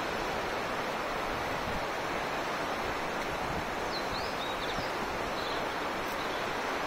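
Steady rush of a mountain river, with a few short high bird chirps about four seconds in.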